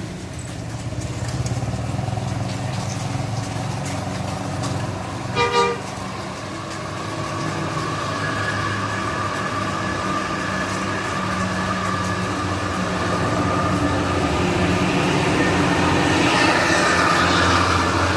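Diesel tour-bus engine working up a steep bend, growing louder through the second half. Its horn gives a brief double toot about five seconds in.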